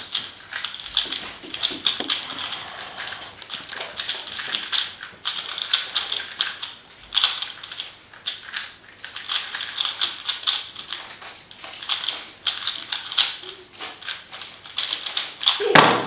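Rapid clicking and clacking of a plastic 3x3 speed cube's layers being turned during a speedsolve. Near the end there is a louder thud as both hands slap down on the competition timer's pads to stop it.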